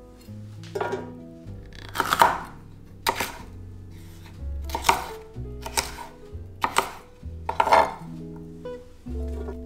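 Chef's knife chopping red bell pepper on a wooden cutting board: crisp, irregular knife strokes, roughly one a second, over soft background music.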